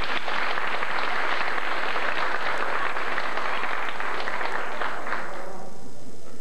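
Audience clapping, a dense patter that fades out near the end.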